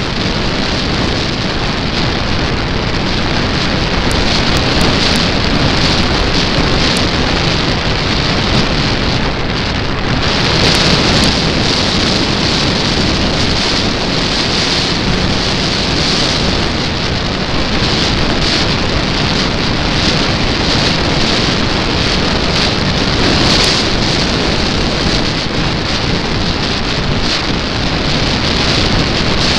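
Steady wind rush buffeting the microphone of a camera mounted under the wing of a model Cessna Corvalis in flight, with no distinct motor tone. The hiss grows brighter about ten seconds in.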